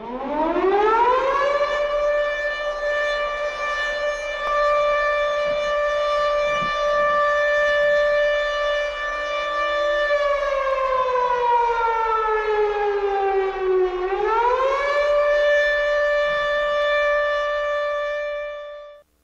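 A siren's wail that winds up over about two seconds, holds a steady pitch, slowly sags lower for about four seconds in the second half, swings quickly back up and holds again, then cuts off just before the end.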